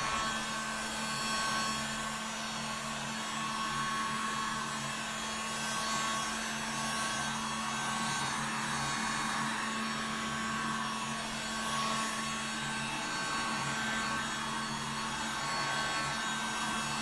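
Hot-air heat gun running steadily, a constant rush of air with a low motor hum. It is blown over freshly poured liquid polyurethane to drive tiny air bubbles out of the surface.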